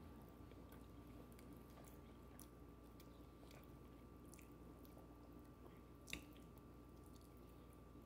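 Faint chewing of pizza toppings, with light scattered clicks of a fork against a plate and one sharper click about six seconds in, over a faint steady hum.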